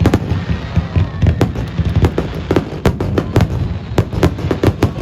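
Fireworks display: many sharp bangs and crackles from bursting shells in quick succession, several a second, over a continuous low rumble.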